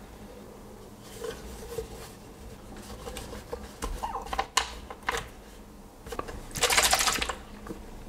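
A small plastic bottle being handled in the fingers: scattered light clicks and taps, then a louder rustle lasting under a second near the end.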